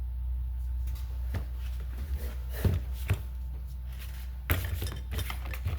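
A few sharp clicks and knocks of small metal valve parts and tools being handled on a workbench, a cluster of them near the end, over a steady low hum.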